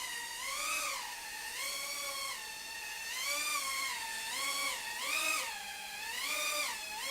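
Furibee X140 quadcopter's motors and propellers whining, the pitch rising and falling every second or so as the throttle changes.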